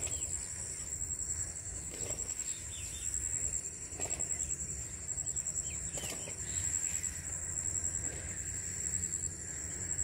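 A steady, high-pitched insect trill with scattered short bird chirps and a low background rumble.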